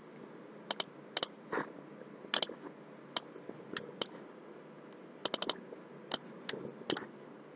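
Irregular sharp computer clicks, a dozen or so, some single and some in quick runs of two to four, over a faint steady hiss.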